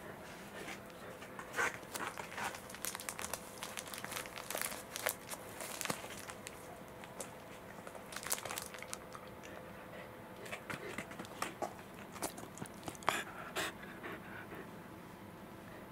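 Welsh corgis panting and licking up okara, mixed with a plastic bag of okara crinkling in a hand: irregular small clicks, smacks and rustles.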